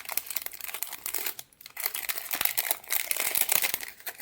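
Crinkling and crackling of wrapping as it is handled, with many small clicks throughout, stopping at the end. It is most likely the packing around a new soldering-iron heating coil as it is taken out to be shown.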